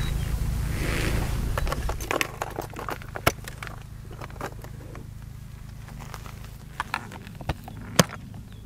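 Rustling of a textile motorcycle suit being pulled off for about two seconds. Then come scattered sharp clicks and knocks from hard plastic motorcycle side cases being unlatched and opened, with the loudest clicks about three seconds in and near the end.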